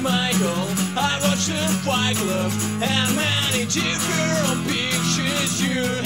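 Outro music: a song with a voice singing over guitar and a steady bass.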